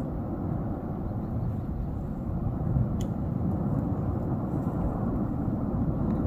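Steady low rumble of the erupting Tajogaite volcano, with one short sharp click about three seconds in.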